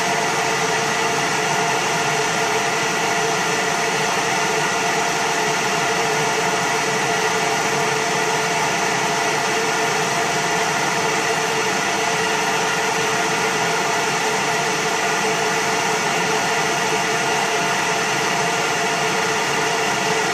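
Condensing gas furnace running steadily with its draft inducer motor drawing and the burner lit: an even rushing noise with a constant hum of tones. This is the blower-on delay after flame has been proven, before the circulating fan starts.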